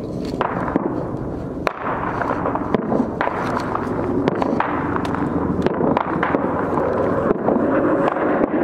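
Scattered gunshots cracking at irregular intervals, a few a second at most, over a continuous rumbling noise.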